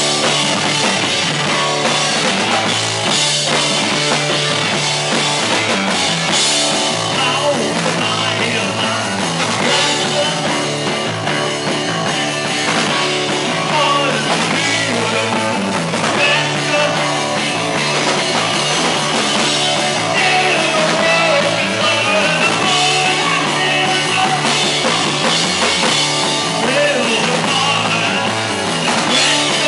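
Live rock band playing a loud, fast song on drum kit and amplified instruments, with singing.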